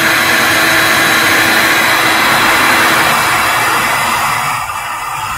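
High heat gun set to 450 degrees, blowing hot air steadily onto heat-shrink tubing: a loud, even fan whoosh with a faint steady hum.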